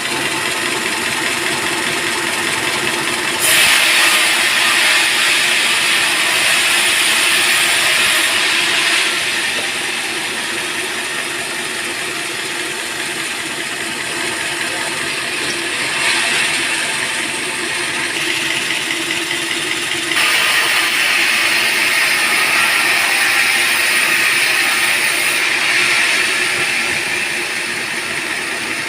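Band sawmill running steadily, its blade cutting into a teak log twice: a louder, higher-pitched sawing noise from about 3.5 s to 9 s, and again from about 20 s to 25.5 s, over the machine's constant running sound.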